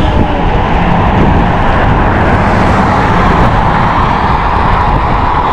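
Wind rushing over the microphone with road noise while riding an electric bike fast downhill, a loud steady rush that swells a little in the middle.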